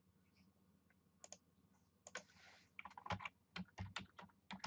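Typing on a computer keyboard: after a quiet start, a run of quick key clicks begins about two seconds in.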